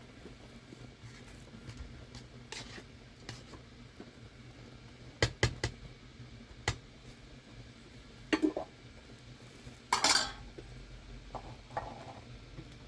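Cooking pots and metal utensils clinking and knocking together in a few separate strikes, with the loudest clatter about ten seconds in.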